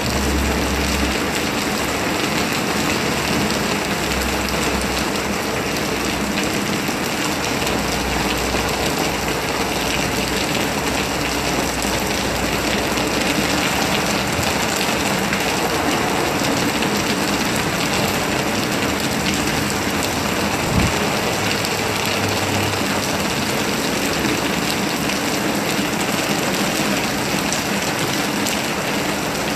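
Steady, heavy rain falling and pattering on surfaces, with a single knock about two-thirds of the way through.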